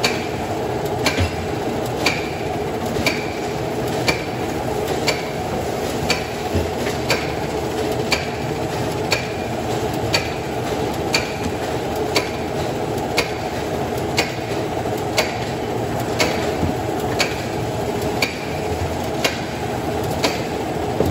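Razorback Model C bacon slicer running: a steady mechanical hum with a sharp, regular click about twice a second from the slicing mechanism.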